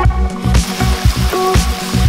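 Background music with a steady beat, about four beats a second, under a melody.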